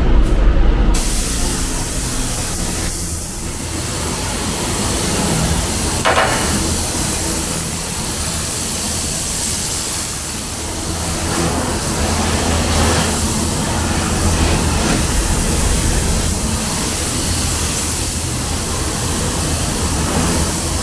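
Steady rushing hiss of a compressed-air paint spray gun in a paint booth, with a low fan hum underneath.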